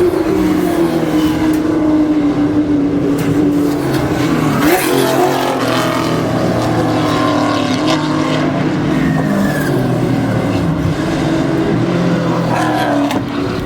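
Racing car engines running hard on a road course, several cars at once, pitch rising and falling with revs and gear changes. About halfway through one car passes close by with a quick drop in pitch.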